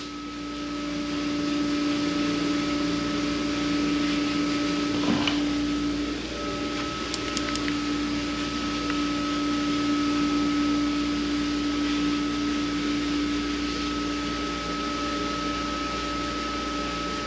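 Steady mechanical hum of a running machine, holding a few fixed pitches, with a couple of faint clicks partway through.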